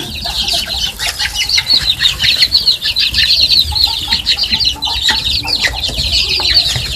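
A brood of baby chicks peeping nonstop, many short, high cheeps overlapping several times a second.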